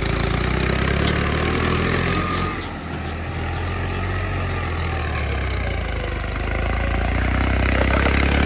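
Mahindra tractor's diesel engine running steadily as the tractor is driven in tight circles on loose tilled soil. The engine note dips briefly about three seconds in, then grows louder near the end.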